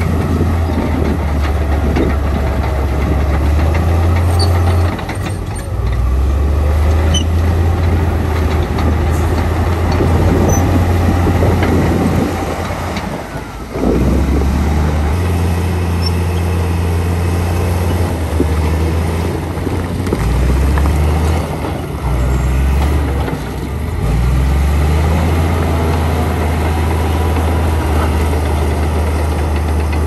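Heavy diesel construction machinery at work: the engine runs with a deep, steady drone that eases off and picks up again several times, most clearly about halfway through.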